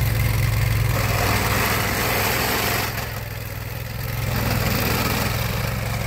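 Vermeer SPX25 vibratory plow running steadily under load as its blade vibrates through frozen ground, with a steady low engine hum and a rushing noise that dips for about a second midway.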